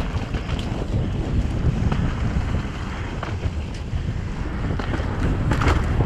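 Mountain bike riding fast down a dirt singletrack: wind buffeting the microphone over tyre noise on dirt and leaves, with frequent clicks and rattles from the bike, the loudest a little before the end.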